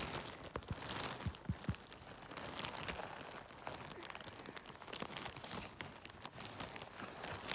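Faint rustling and crackling of forest-floor litter, with scattered small clicks and snaps.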